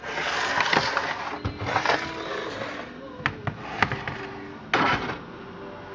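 Handling noise: rustling with a few sharp clicks and a short scrape near the end, over faint steady background tones.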